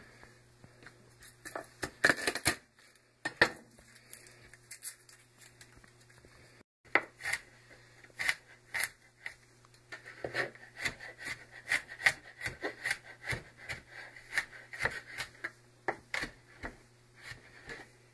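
Chef's knife knocking on a plastic cutting board as garlic cloves are peeled and minced. A few scattered taps at first, then a quick run of chops, several a second, from about seven seconds in.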